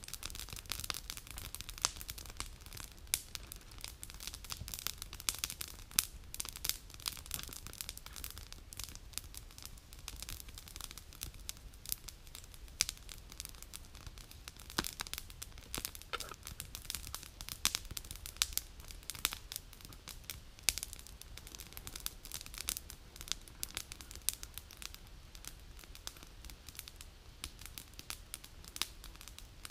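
Wood campfire crackling, with many sharp, irregular pops.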